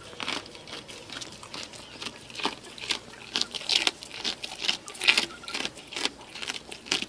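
A goat feeding close to the microphone: irregular crunching and chewing noises, some louder than others.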